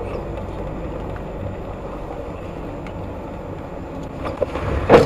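Steady low road and engine rumble of a car heard from inside the cabin, then, near the end, a sudden loud crunch as it collides at low speed with another car on a roundabout.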